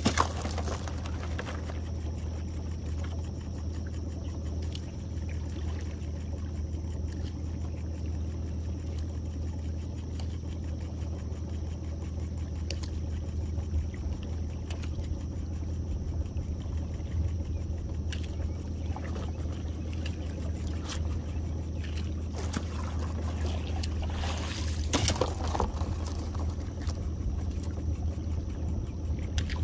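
Small boat's outboard motor running steadily at idle as the skiff creeps along a crab trotline. A few brief knocks or splashes break in, the loudest near the end.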